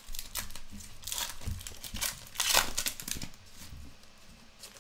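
Silver foil wrapper of a Topps Finest soccer card pack crinkling in the hands as it is pulled open: a run of crackles, loudest about two and a half seconds in.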